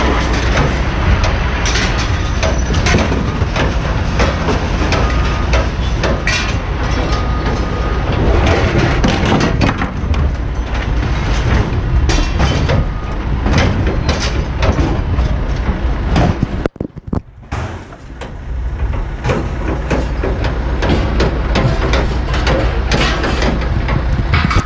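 Scrap yard din: scrap metal appliances clanking and knocking as they are handled, over a steady low rumble. The sound cuts out for under a second about two-thirds of the way through.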